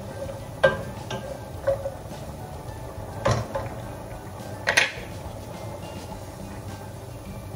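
A wooden spoon stirring bacon and mushrooms in a nonstick frying pan, knocking sharply against the pan four times, the last two knocks the loudest.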